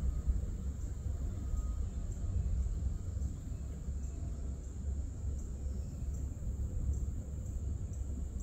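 Insects singing outdoors: a steady high-pitched drone with a faint regular pulsing, over a low, uneven rumble.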